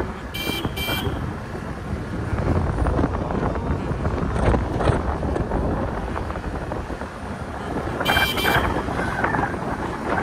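Riding a motor scooter through city traffic: steady engine, road and wind rumble on the microphone. Two short horn beeps come about half a second in, and a longer horn blast comes around eight seconds in.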